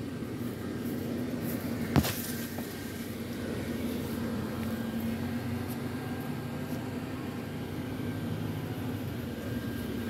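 Electric blower fan keeping an inflatable lawn decoration inflated, running with a steady hum, with one sharp click about two seconds in.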